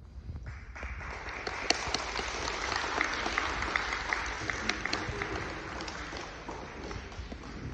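Audience applauding, rising about a second in and tapering off near the end, with a few sharp single claps standing out.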